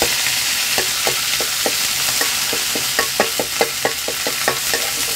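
Red curry paste frying in hot oil in an aluminium wok, sizzling steadily, while a metal spatula stirs it and clacks and scrapes against the pan several times a second, most busily about three seconds in.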